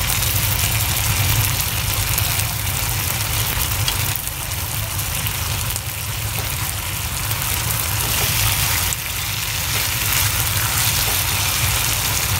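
A frying pan of bitter melon in tomato sauce bubbling and sizzling steadily on the stove, over a steady low hum.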